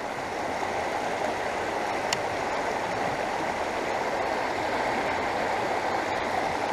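Shallow river riffle: water rushing steadily over rocks, with a single faint tick about two seconds in.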